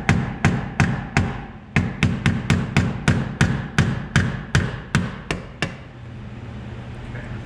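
A flathead screwdriver being tapped against the metal locking ring of the fuel level sender on a 1967 Ford Mustang's fuel tank, knocking the ring round to release the sender. About seventeen light strikes come at roughly three a second, with a brief pause just over a second in, and they stop about six seconds in.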